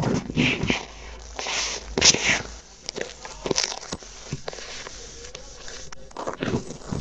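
Close, irregular crackling, crinkling and scratching of paper and adhesive tape wrapped around an earphone's inline microphone, first pressed by fingers, then picked and scraped with metal tweezers in small clicks and rustles, imitating the sound of ear cleaning heard from inside the ear.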